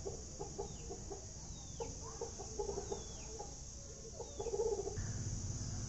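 Hens clucking in short runs, with a few faint high chirps from small birds. A low rumble comes in near the end.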